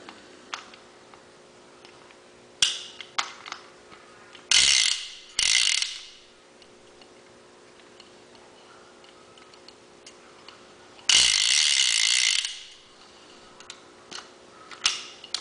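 Vintage PENN Senator 114H big-game conventional reel's ratchet mechanism clicking as the reel is worked by hand: a single click, then two half-second runs of rapid clicking, and a longer run of about a second and a half past the middle.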